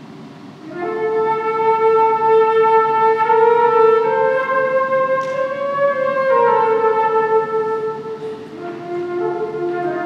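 Solo concert flute playing a slow passage of long held notes. A soft low note swells into a louder, higher note just under a second in, the line steps up around four seconds and back down after six, and it settles on a softer, lower note near the end.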